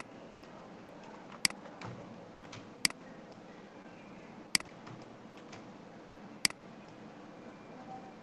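Computer mouse button clicks: a sharp single click right at the start, then four more spaced about one and a half to two seconds apart, over a steady low background hiss.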